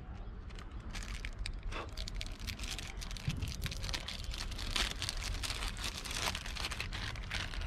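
Foil snack pouch from a one-chip challenge crinkling and crackling as it is twisted and torn open by hand, in many small irregular crackles.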